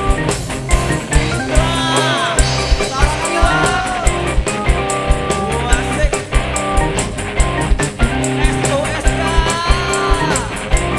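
Dangdut koplo band playing an instrumental break: a fast, even drum beat over bass and held chords, with a melody line of bending, sliding notes on top.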